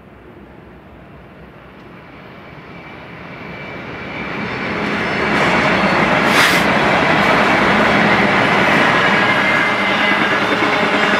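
BNSF freight diesel locomotives, led by GE Dash 9-44CW 5525, approaching and passing at speed, their engines growing steadily louder over the first five seconds. There is a brief rush of noise as the locomotives go by about six seconds in, then the steady running noise of double-stack intermodal cars rolling past.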